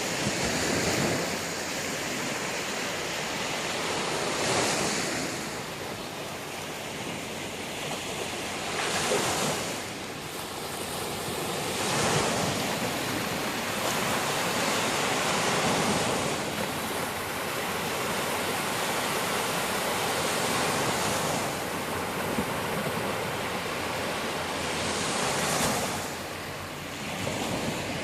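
Sea waves breaking and washing up a beach, in a steady wash of surf that swells every four to five seconds as each wave comes in.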